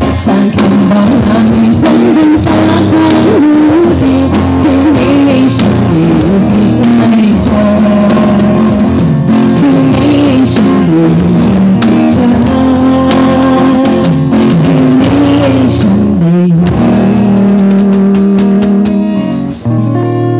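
Loud music with a melody and regular drum strikes, dipping briefly near the end.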